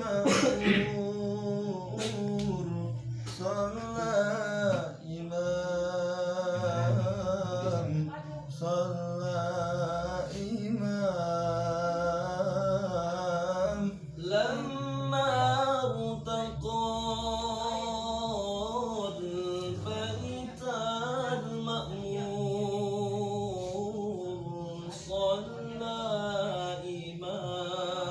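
Sholawat, Islamic devotional singing, sung in long, drawn-out melismatic phrases with the pitch bending up and down, and a few sharp taps here and there.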